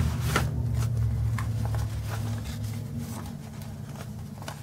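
Paper banknotes being handled and slipped into a savings pocket: a few short, crisp rustles and taps spread through, over a low steady hum that slowly fades.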